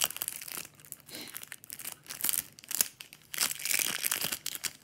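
Plastic shrink-wrap being torn and peeled off a deck of game cards, crinkling in irregular bursts.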